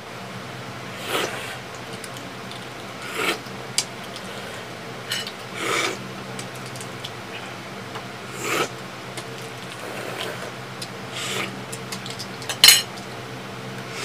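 Close-up eating sounds of balut: boiled duck-egg shells crackling as they are cracked and peeled by hand, with sips and chewing as the eggs go to the mouth, and now and then a clink of dishes or cutlery. The sounds come as scattered short bursts, the loudest near the end.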